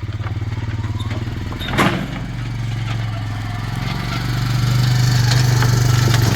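Four-wheeler (ATV) engine running steadily, then growing louder from about four seconds in. A single sharp knock sounds about two seconds in.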